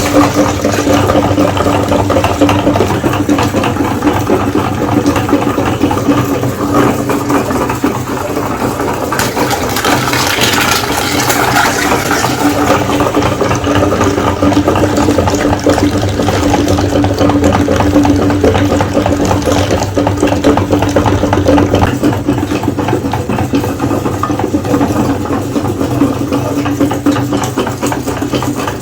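Electric meat grinder running steadily, its motor humming under a constant patter of small clicks and crackles from what is being ground.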